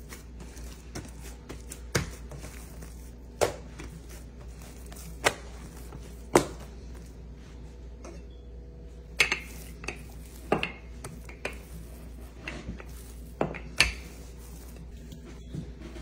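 Scattered kitchen knocks and clinks: a metal spoon clinking against a small metal cup and a mixing bowl while filling is scooped, among dull knocks of hands and utensils on the countertop, about a dozen separate strikes.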